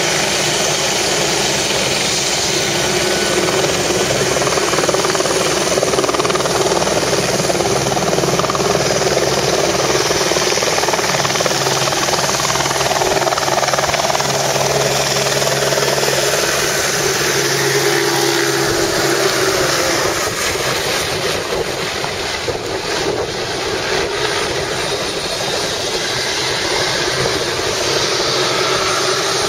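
Light helicopter lifting off from the pad and flying away: a loud, steady rush of rotor and engine noise. Its low steady hum drops out and the noise eases slightly about two-thirds of the way through as it moves off.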